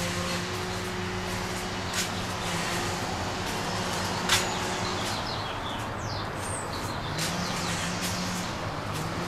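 Steady background hum and noise of traffic or machinery, with a few short high bird chirps a little past halfway and two sharp clicks.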